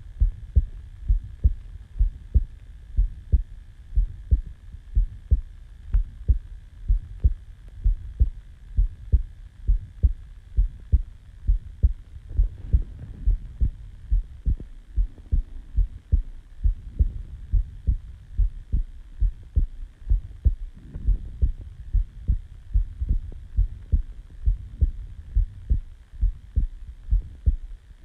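A person's heartbeat recorded close to the chest just after waking: a resting heart beating in a steady, regular rhythm of low thumps over a faint steady hum.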